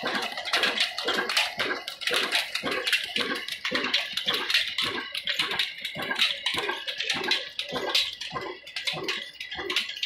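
Ruston Hornsby 22 HP diesel oil engine running steadily under belt load, beating evenly about three times a second.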